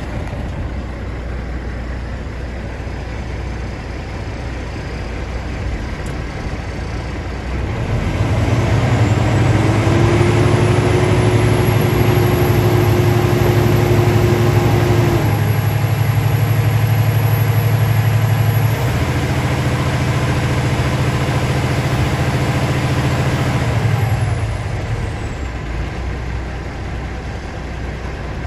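2006 Cummins ISX15 diesel engine heard from inside the truck cab: it idles, then is revved up about a quarter of the way in and held at roughly 1,500 rpm, with a high whine rising along with it. It steps down slightly past the halfway point and drops back to a steady idle near the end.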